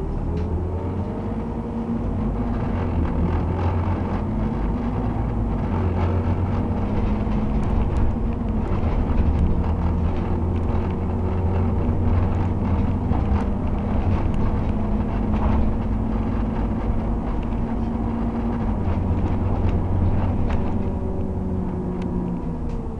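Scania OmniCity bus's diesel engine and drivetrain heard from inside the passenger cabin while the bus is under way, with light interior rattles. The engine note climbs at the start, holds steady, and falls away near the end.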